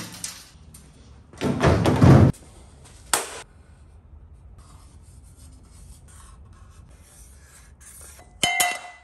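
Sheet aluminium and an aluminium tube being handled on a concrete floor: a loud scraping rub about a second and a half in, then a shorter scrape. A sharp ringing hit comes near the end.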